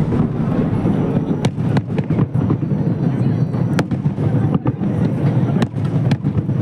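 Fireworks display: a dense, continuous rumble of bursts with sharp cracks popping every second or so, over the murmur of a crowd.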